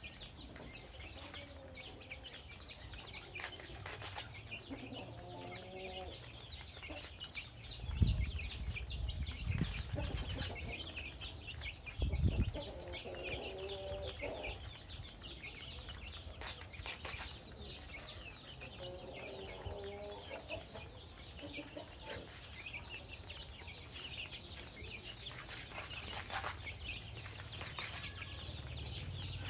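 A flock of young chickens peeping continuously while they peck at feed, with a few lower clucking calls in between. Two low thuds come about 8 and 12 seconds in.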